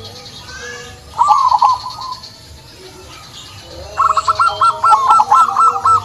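Zebra dove (perkutut) cooing: a short burst of rapid trilled notes about a second in, then a longer run of quick pulsed coos from about four seconds in. Faint high chirps sit behind it.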